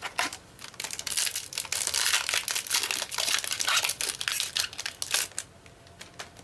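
Foil wrapper of a Yu-Gi-Oh booster pack crinkling as it is torn open by hand: a dense run of crackles that stops about a second before the end.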